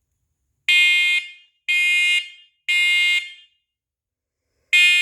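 First Alert SC7010-series combination smoke and carbon monoxide alarm sounding its smoke test: three loud, piercing beeps about a second apart, a pause, then the next group of three starting near the end. This is the temporal-three evacuation pattern.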